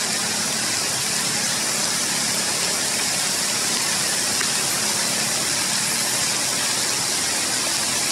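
Heavy rain falling steadily on forest leaves, an even hiss.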